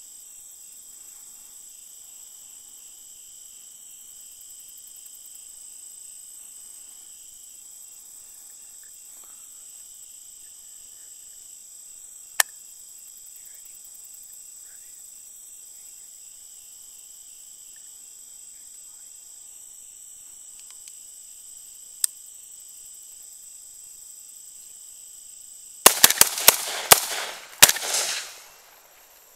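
AR-15 rifle fired in a rapid string of about five shots near the end, each a sharp crack with ringing after it, over a steady chorus of night insects. Two single sharp clicks come earlier, well apart.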